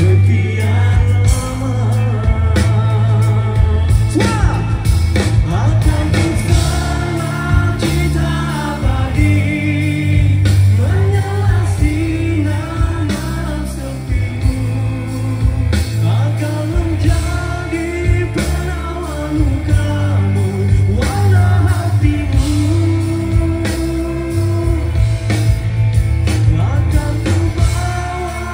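Rock band playing live through a concert PA: a male lead vocal sings over electric guitar, bass guitar, keyboards and drums, with a heavy, steady bass underneath.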